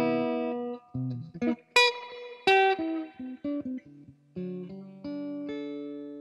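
A guitar tune played as single plucked notes, each ringing on and fading, with a brief lull about four seconds in before longer held notes.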